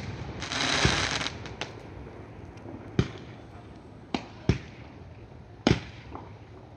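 Fireworks going off: about half a second in, a dense rush of noise lasting about a second, then four or five separate sharp bangs at uneven intervals. Heard through a phone's microphone.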